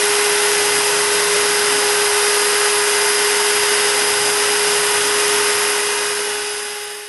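High-Z S-1000 CNC router engraving wood: the spindle, set to 25,000 rpm with a 0.7 mm engraving bit, gives a steady whine over a loud steady rushing noise. The sound fades away near the end.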